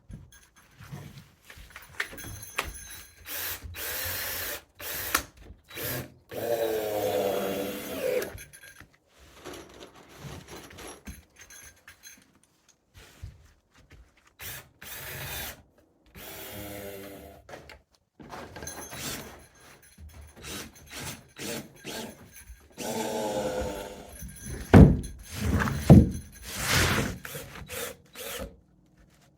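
Power drill driving screws into timber in several short runs, the motor pitch rising and falling with each run, with short stop-start bursts between them and a few sharp knocks near the end.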